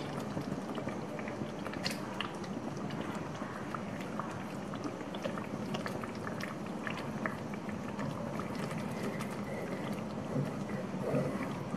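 Pesto sauce sizzling and bubbling in a pan on a gas burner as cream is poured in, with many small crackles over a steady hiss.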